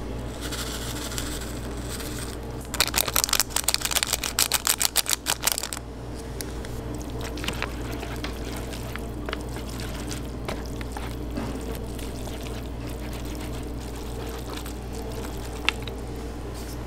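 Wooden chopsticks stirring sauce-coated instant noodles in a paper bowl: wet, rapid clicking and slapping, loudest in a burst from about three to six seconds in, then softer scattered clicks. A steady low hum runs underneath.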